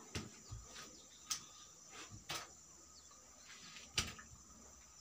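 Scattered light knocks and clicks, like footsteps and handling on wooden planks, about half a dozen, the sharpest about four seconds in. Under them runs a faint steady high insect drone.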